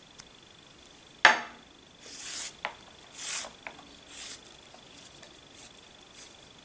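Thin leather laces rustling in short scratchy swishes as they are pulled through a tight over-one-under-one braid, three or four pulls in a row. A single sharp click about a second in is the loudest sound.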